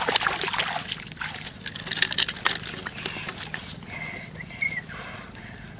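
Crackly rustling and clicking of plastic handling as fish strung on plastic bottles are lowered into a woven plastic sack, busiest in the first three seconds and dying down after that.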